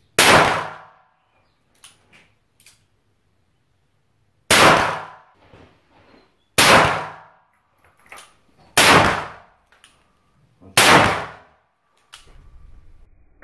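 Ruger Super Redhawk .44 Magnum revolver with a 7.5-inch barrel fired five times, one shot and then four more about two seconds apart, each a sharp very loud report with a ringing echo after it.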